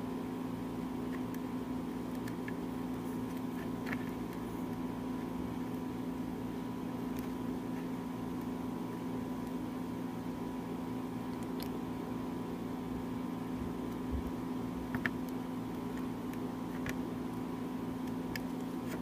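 Steady low electrical or mechanical hum, with a few faint ticks scattered through it.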